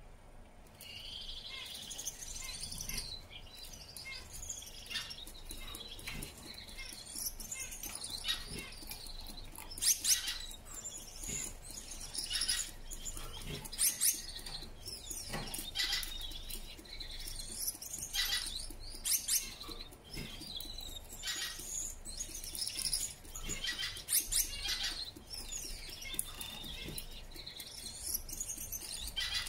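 Male Gouldian finch singing its courtship song: high-pitched, scratchy, hissing phrases with sharp clicks, coming in bouts every few seconds.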